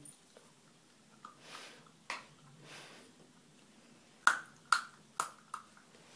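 A whippet-cross-Bedlington puppy chewing a raw chicken wing: a few soft wet gnawing sounds, then four or five sharp crunches in quick succession in the second half.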